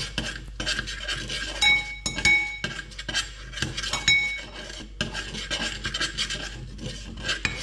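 Metal spoon scraping and stirring around a small stainless steel saucepan of hot oil, a continuous rasping broken by frequent clinks, several of which leave the pan ringing briefly.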